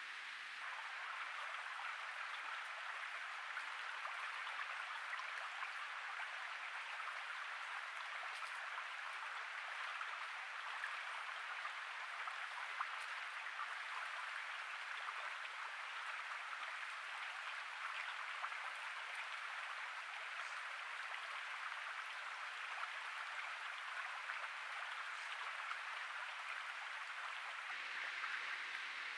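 Steady, even hiss without distinct events, as picked up by a trail camera's microphone.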